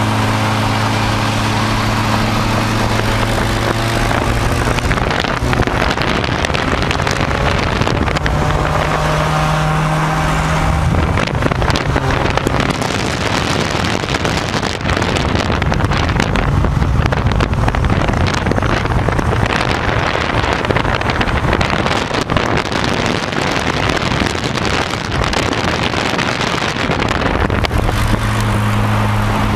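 Engine of a modified ZAZ Zaporozhets with a swapped-in powerful engine, running and driving along the road, heard from a car alongside. Its note is steady at first and near the end; through the middle it turns into a rougher, louder rush mixed with wind noise on the microphone.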